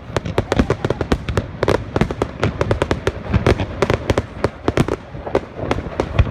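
Fireworks going off in rapid succession: a dense run of sharp bangs and crackles, several a second, mixed with deeper booms.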